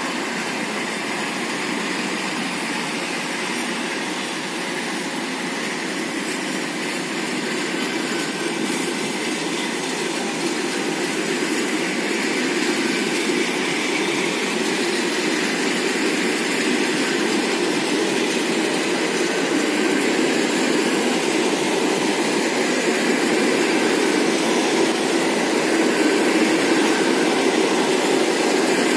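Passenger coaches of a departing diesel-hauled train rolling past on the rails: a steady wheel-and-track running noise that grows gradually louder as the train gathers speed.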